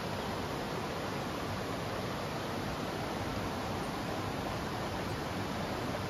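Steady, even rushing of a river flowing over rocks.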